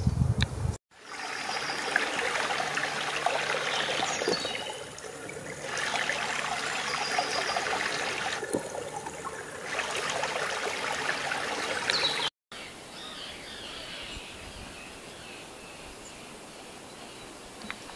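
Water running and trickling, a steady rushing that swells and dips, cut off abruptly about twelve seconds in. After the cut comes a quieter outdoor background with faint high bird calls.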